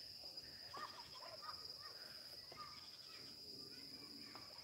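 Faint steady high-pitched trill of crickets, with a few faint short chirps now and then.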